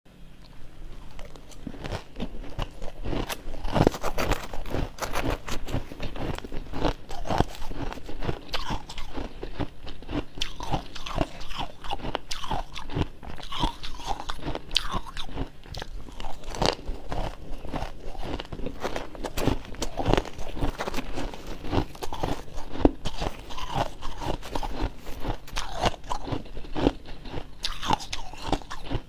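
Close-up crunching and chewing of freezer frost, a dense run of crisp crackles and bites that keeps up almost without a break.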